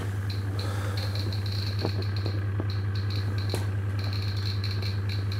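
Geiger counter of a radiation survey meter clicking rapidly and irregularly, held close to a cat that is still radioactive after I-131 radioiodine treatment. Under the clicks runs a steady low hum.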